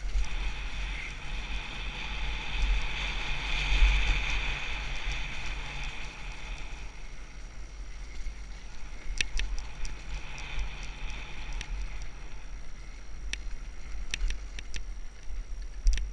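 Enduro dirt bike being ridden along a dirt track, heard from a helmet-mounted camera: the engine running, with wind rumbling on the microphone. The engine is louder over the first several seconds and briefly again in the middle, and there are a few sharp clicks in the second half.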